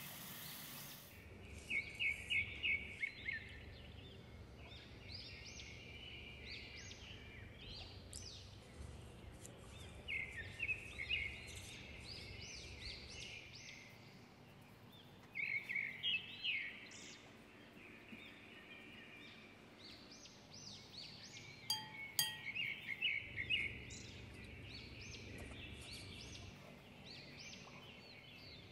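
Birds chirping in short bursts of quick, high notes every few seconds, over a faint low hum.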